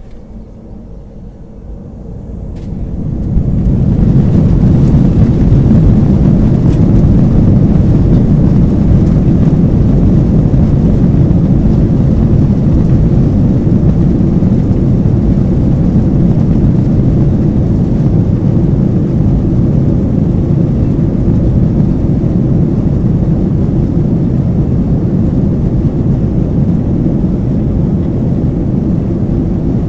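Airbus A321 heard from the passenger cabin as takeoff power is set: the engine noise builds over a couple of seconds into a loud, steady roar that holds as the airliner accelerates and climbs.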